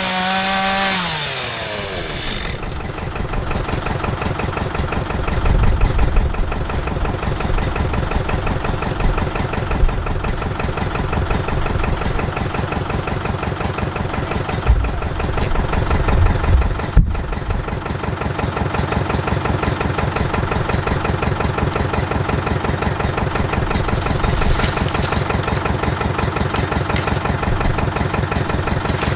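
Chainsaw at full throttle drops back in the first two seconds, a falling whine, then an engine runs steadily at idle with an even pulse and a few low thumps.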